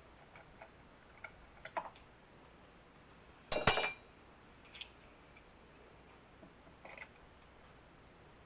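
Metal hand tools clinking as they are rummaged through: a few light clicks, then one louder clatter about three and a half seconds in, and a few more faint clicks.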